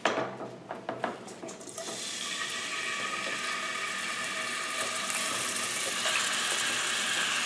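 Diced raw chicken breast dropped into a skillet of hot olive oil, with a few clattering knocks in the first second or two. It then settles into a steady sizzle that builds over about two seconds and keeps going.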